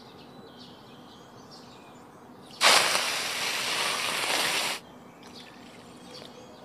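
A glass bowlful of water poured into an aluminium wok holding sugar, a loud splashing pour lasting about two seconds that starts and stops abruptly a little before the middle; it is the water for a sugar syrup.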